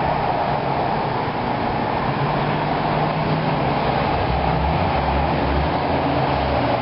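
Steady vehicle noise: an engine running with a low, steady tone, over a constant traffic hum.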